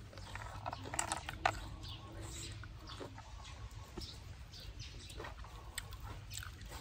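Eating sounds close up: blood cockles and salad picked by hand from a plate and chewed, with scattered small clicks from the shells and the mouth, the loudest about a second in.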